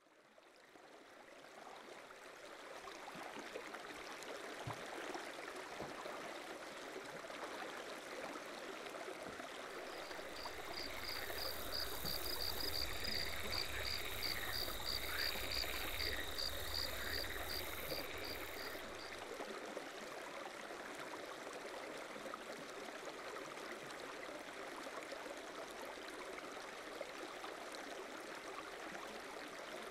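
Outdoor ambience of running water that fades in over the first few seconds. In the middle stretch a rapid pulsing call repeats about three times a second alongside a few rising-and-falling chirps and a low rumble.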